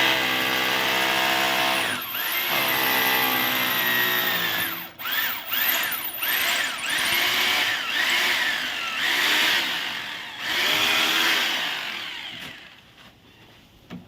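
Hilti TE-2 rotary hammer drill running and drilling. Its motor first holds a steady pitch, then from about five seconds in the pitch repeatedly rises and falls as the drill works. It winds down and goes quiet near the end.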